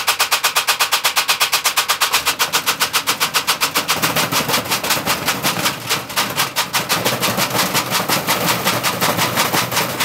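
Thirty-year-old washing machine spinning with stones in its drum, the unbalanced load knocking at about seven or eight blows a second. About four seconds in, the even knocking turns into a denser, irregular rattling and banging as the machine shakes and hops.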